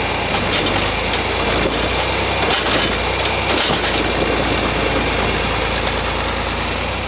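Tractor engines running steadily: a John Deere farm tractor pulling, with a child's small-engined mini tractor in tow, hauling it out of deep mud.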